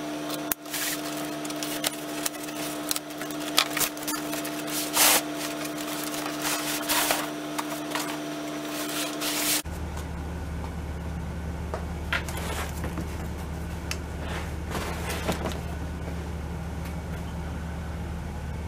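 Large cardboard shipping box being opened and handled: irregular rustling, scraping and knocks of cardboard for about ten seconds. After that comes a steady low room hum with a few faint clicks.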